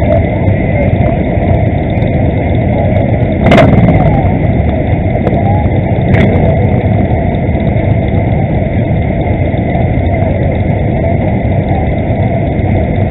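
Engines of a large pack of cruiser motorcycles idling and moving off slowly together, a steady low sound, with a sharp knock about three and a half seconds in and a smaller one about six seconds in.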